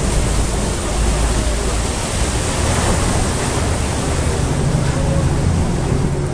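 Amphibious bus driving up out of the lake onto a concrete slipway: a steady rush of water splashing off the hull and wheels over the low hum of its engine.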